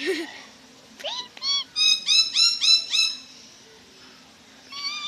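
Parrot whistling in imitation, a string of short rising whistled notes: two about a second in, then a quick run of about six, and one more near the end.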